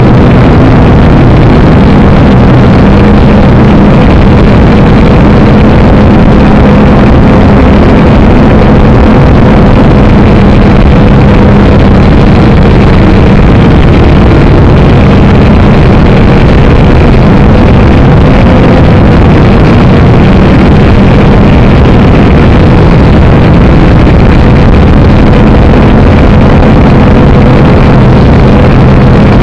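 Syma X5C quadcopter's four small electric motors and propellers buzzing steadily in flight, heard loud and close through the drone's own onboard camera microphone. The pitch and level hold steady throughout.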